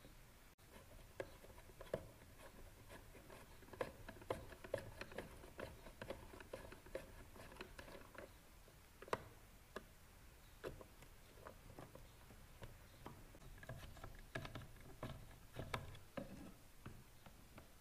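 Faint, irregular clicks and ticks of a Phillips screwdriver turning screws out of a Minn Kota Maxxum trolling motor head, with small knocks as the housing is handled; a louder cluster of clicks comes about two-thirds of the way through.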